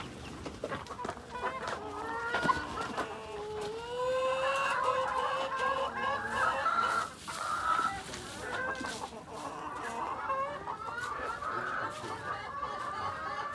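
A flock of laying hens clucking and calling together, many short overlapping calls with a few longer drawn-out ones.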